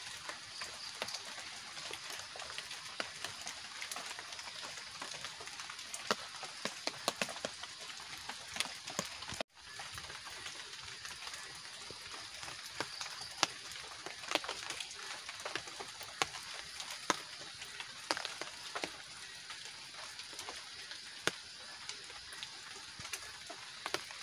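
Steady rain in a forest, with many scattered drops tapping sharply on a tarp shelter, over a steady high-pitched chirring of night insects. The sound cuts out for a moment about nine seconds in.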